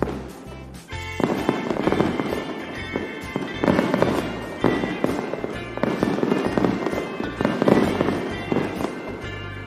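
Aerial fireworks bursting and crackling in repeated volleys, growing louder about a second in, over background music.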